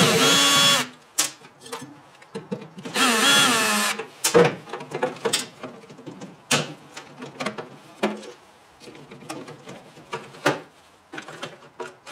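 Ryobi 18-volt cordless drill-driver running in two short bursts about three seconds apart, backing screws out of the microwave's housing. Scattered light clicks and knocks follow as parts and wires are handled.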